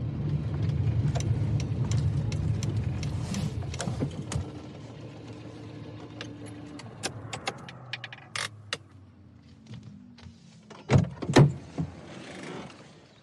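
A vehicle engine rumbling low and steady for about the first four seconds, then fading, followed by keys jangling with scattered clicks and rattles, and two heavy thumps about eleven seconds in.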